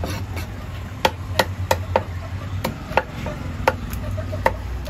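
A large knife chopping tilapia on a wooden block: about eight sharp knocks at an uneven pace, starting about a second in, over a steady low background hum.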